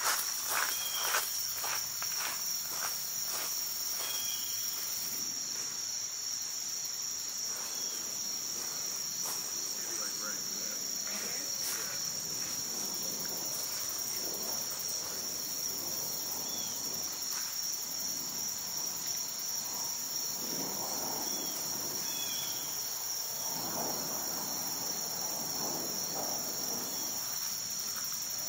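A steady, high-pitched chorus of insects calling from the trees. Footsteps crunch on gravel in the first second.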